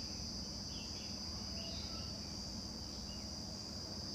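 Steady high-pitched insect chirring, with a few faint short bird-like chirps over it.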